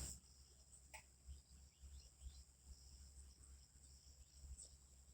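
Faint, steady high-pitched chirring of insects, such as crickets, with a few faint, short bird chirps, one about a second in.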